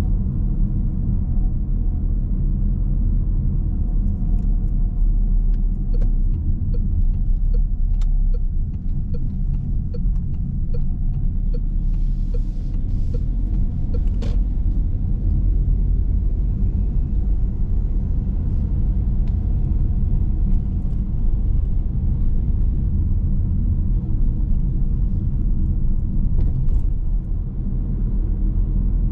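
A car driving at low speed, a steady low rumble of engine and tyres. For several seconds in the middle, the turn-signal indicator ticks evenly, about one and a half times a second.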